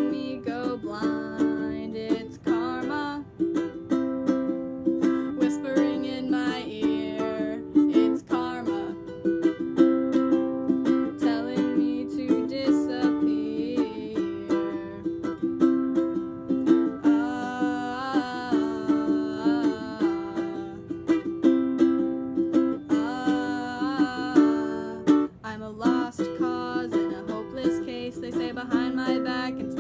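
A person singing a song while strumming an acoustic string instrument, with steady, rapid strums under the sung melody.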